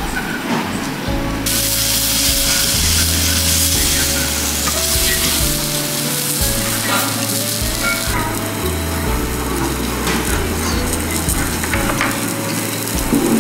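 Beef steak sizzling on a hot stone plate, a hiss that comes in about a second and a half in and is strongest for the next several seconds before easing off. Background music with a moving bass line plays underneath.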